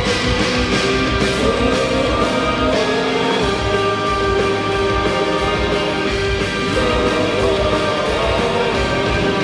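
A live rock band playing an instrumental passage with no vocals. Sustained instrument chords run over a regular beat that is clearest in the first three seconds.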